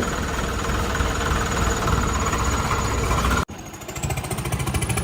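Diesel tractor engine running steadily with an even knocking beat. About three and a half seconds in the sound cuts off abruptly, then returns quieter and builds back up.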